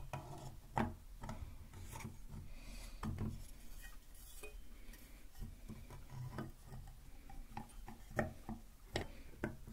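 Close handling sounds at the microphone: irregular clicks, taps and rubbing of hard objects, with sharper knocks about a second in and again near the end.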